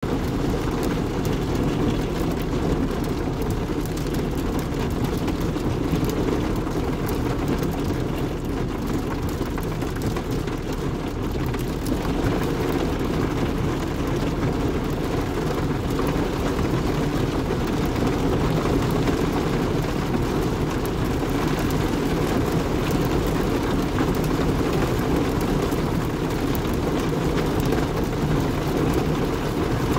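Steady rain with a constant low rumble under it and scattered sharp drop hits.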